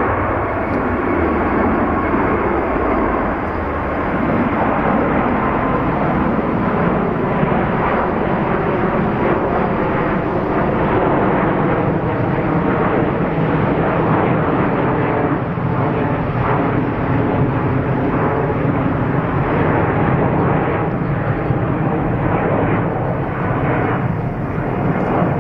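Jet airliner engines running loudly, a steady rush of noise with a faint high whine in the first few seconds, from the Airbus A350-1000 and its Rolls-Royce Trent XWB engines.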